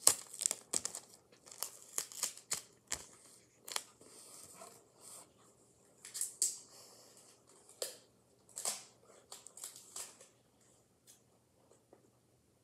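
Adhesive tape being pulled off the roll and torn, with paper crinkling as it is handled: irregular short rips, thickest in the first few seconds and then more scattered.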